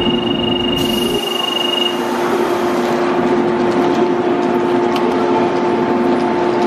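A JR Kyushu 415-series electric train standing at a station platform with its doors open, humming steadily with several even tones. A steady high beep sounds for about the first two seconds.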